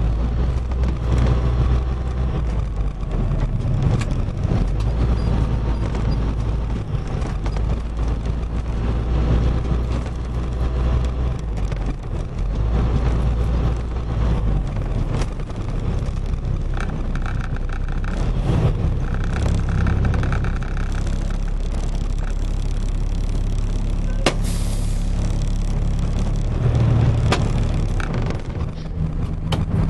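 Box truck's engine running with road noise, a steady low drone that shifts a little in pitch, with one sharp knock about two-thirds of the way through.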